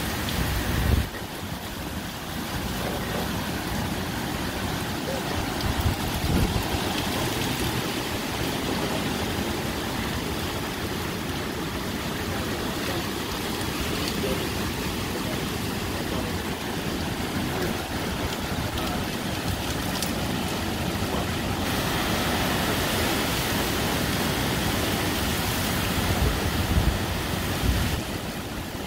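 Hurricane rain pouring down and wind blowing hard through the trees in a steady rush. Gusts hit the microphone with a low rumble now and then, strongest about a second in, around six seconds in and near the end.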